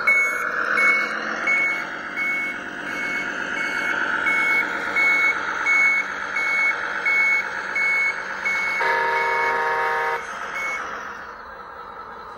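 An RC tow truck's sound module plays a diesel truck engine with a reversing beeper beeping about twice a second as the truck backs up. About nine seconds in, a horn-like blast lasts just over a second. The beeps stop near the end, leaving a quieter engine sound.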